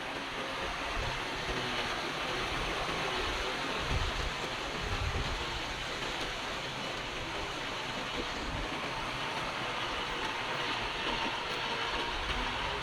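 Komatsu D31PX crawler bulldozer working: its diesel engine runs steadily under load while its steel tracks clank and rattle, with a few low thumps about four seconds in.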